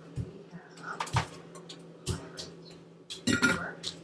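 Scattered clinks and light knocks of dishes and utensils being handled while eating, about one a second, the loudest cluster near the end, over a steady low hum.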